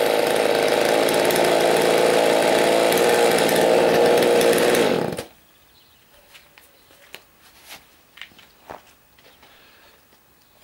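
Chainsaw engine running at high speed, steady and loud, then cutting off suddenly about five seconds in, leaving only faint scattered clicks and knocks.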